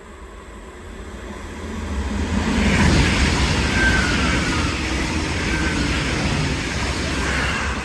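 A train passing close by: a rush of wheels on rails that builds up, is loudest about three seconds in, holds for several seconds and fades near the end, with a few brief high squeals.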